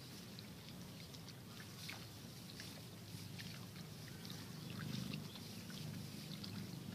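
Rice plants rustling, with many small crackles and snaps as weeds are pulled out by hand among them, over a steady low rumble that grows a little louder about five seconds in.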